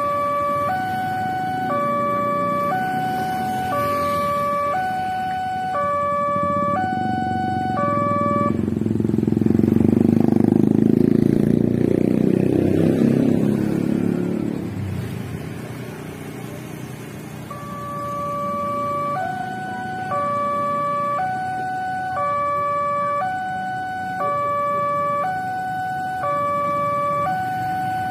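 Railway level-crossing electronic warning alarm, two tones alternating high and low a little more than once a second, signalling that a train is approaching. About eight seconds in it stops and a motorcycle's engine passes close by with a loud rumble; the alarm starts again about nine seconds later.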